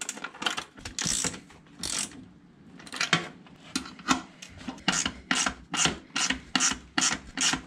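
Hand ratchet with an 11 mm socket tightening 1/4-20 bolts, its pawl clicking in repeated short strokes, a few spaced out at first and then about two a second, as the bolts are run down until tight.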